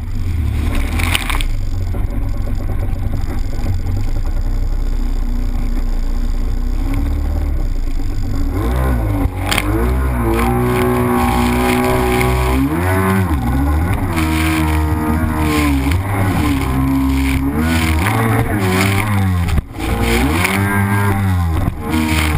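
Yamaha SuperJet 650 stand-up jet ski's two-stroke twin engine running on the water, with spray and rushing water. For the first several seconds the rush of water is the main sound; from about nine seconds in, the engine's pitch rises and falls again and again as the throttle is worked.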